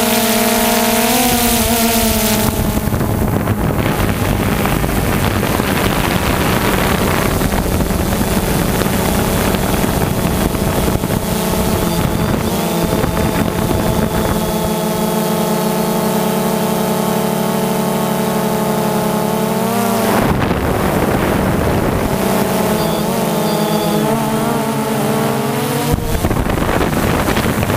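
Quadcopter drone's propellers whining steadily. Their pitch shifts up and down together as the drone changes speed, around a second in, at about twenty seconds and near the end, with some wind noise.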